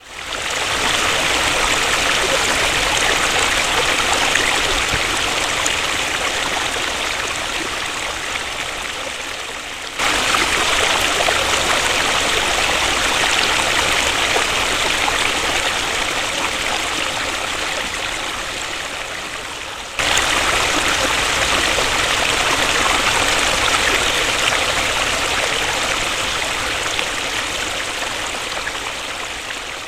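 Waterfall's water falling and rushing in a steady, full hiss. The loudness sags slowly and then jumps back up twice, about every ten seconds.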